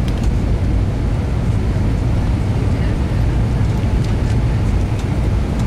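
Steady cabin rumble of an Airbus A320 in descent, engine and airflow noise heard from a window seat over the wing, deepest in the low range.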